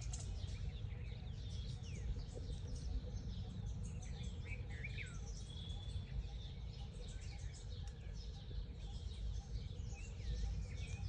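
Several birds chirping and calling on and off, with quick sweeping whistles, over a steady low rumble.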